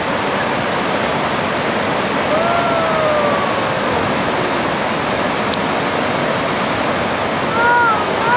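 Steady rushing roar of Koosah Falls, whitewater pouring over the drop. A person's long, falling call rises above it about two seconds in, and shorter calls come near the end.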